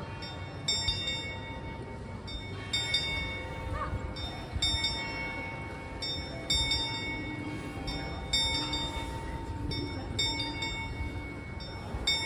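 Bell of the Prague astronomical clock, struck about every two seconds during the apostle procession. Each stroke rings on and overlaps the next.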